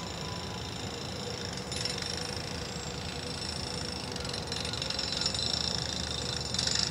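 Distant CN diesel-electric freight locomotive running at low throttle as it creeps forward, a steady low rumble, with a steady high-pitched ringing over it that grows louder in the last couple of seconds.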